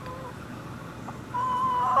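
Chicken calling: a short call right at the start, then about a second and a half in a loud, drawn-out call held on one pitch.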